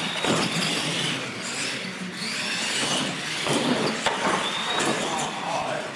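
Radio-controlled monster trucks racing. Their electric motors whine, rising and falling in pitch, with a few knocks as the trucks hit the ramps and one tumbles.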